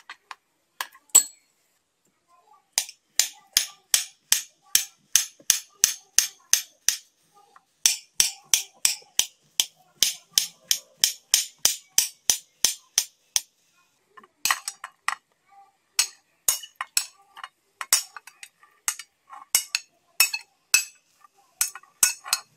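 A knife chopping ripe bananas on a plate, each cut ending in a sharp tap on the plate, about two to three strokes a second in runs broken by short pauses. First a few clinks of a metal spoon against a glass bowl, the loudest about a second in.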